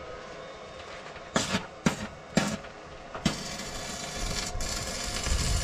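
Stick arc welding on a truck's steel underframe: a few sharp crackles as the electrode is struck, about one to two and a half seconds in, then the arc settles into a steady frying crackle from about three seconds in.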